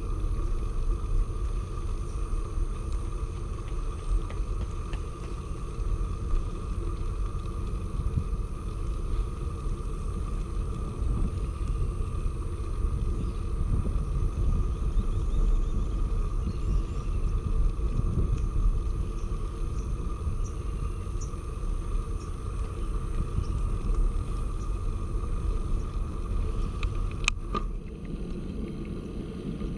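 Steady low rumble of a bicycle being ridden along a paved path: tyre and frame vibration, with a faint steady tone above it and a sharp click about 27 seconds in.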